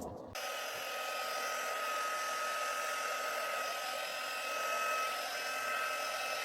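Hand-held hot-air blower running steadily: a rushing hiss with a thin, steady high whine. It cuts in abruptly just after the start.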